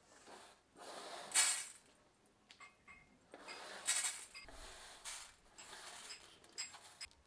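Horse gram seeds sliding and rattling across a metal tray as they are swept by hand, in a series of swishes about a second long with short gaps between.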